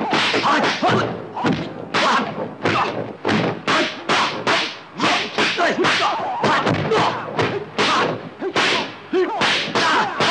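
Rapid string of dubbed punch and kick impact effects in a kung fu film fight, about three hits a second, with swishing swings and the fighters' shouts between them.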